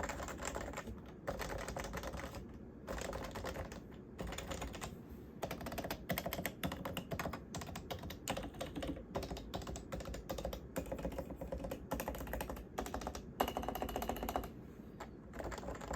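Typing on a Topre Realforce R1 87UW keyboard with electrostatic capacitive rubber-dome switches, its sliders lubed with Tribosys 3204 and its stabilizers with dielectric grease. Quick runs of keystrokes come in bursts separated by short pauses, with one sharper, louder keystroke about 13 seconds in.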